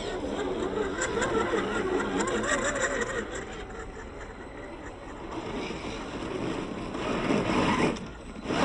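Electric motor and gears of a radio-controlled crawler truck whirring, wavering in pitch as it crawls, louder near the end.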